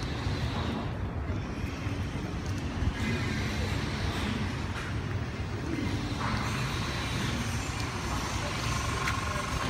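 Steady rumble of city road traffic and street noise, with no single event standing out.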